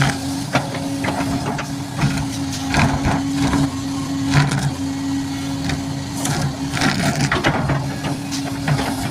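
Heavy machinery running: a steady engine hum with irregular metallic knocks and clatter throughout.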